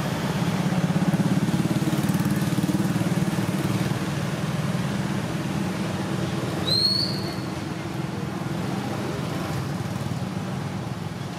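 A motor vehicle's engine running steadily, with a fine rapid pulse, a little louder early and easing off after about seven seconds. About seven seconds in, one short rising high-pitched squeak.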